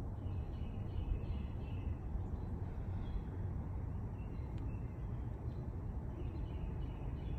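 A steady low rumble with faint, short bird chirps scattered throughout.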